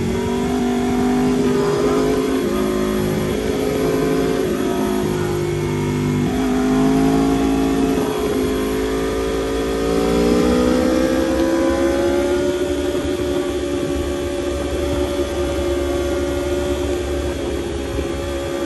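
2016 Aprilia RSV4 RR's V4 engine heard from the rider's seat at speed, its pitch dipping and rising with the throttle through the bends, climbing from about halfway and then holding steady.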